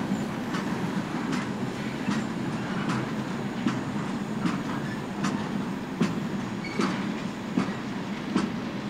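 Freight train cars rolling past with a steady rumble, their wheels clicking over a rail joint at an even pace, about once every 0.8 seconds.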